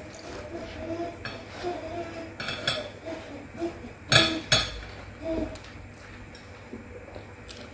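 Eating sounds: noodles slurped and chewed, with two sharp clinks of a fork against the plate about four seconds in.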